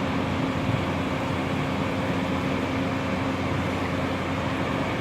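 Steady hum of a running vehicle, with a constant low tone and no breaks.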